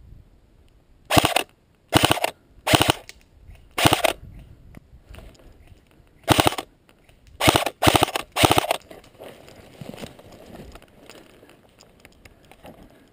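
Airsoft rifle firing eight short full-auto bursts, each a quick string of rapid shots: four in the first four seconds, then a pause of about two seconds and four more.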